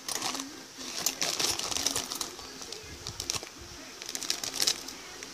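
Clear plastic bags holding plastic model-kit runners crinkling as they are handled, in several short bursts.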